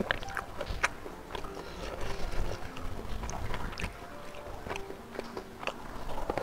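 Close-miked eating by hand: wet chewing and mouth smacks, with sticky clicks of fingers gathering rice, cassava leaves and smoked beef into a mouthful. The handful goes into the mouth near the end.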